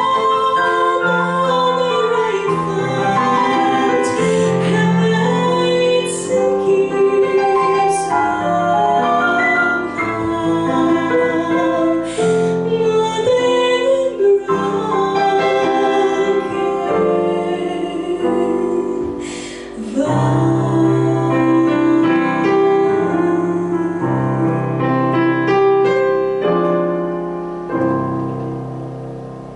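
A woman sings a jazz standard through a handheld microphone, accompanied by chords on a digital piano. Near the end the singing stops and the last piano chord dies away as the song ends.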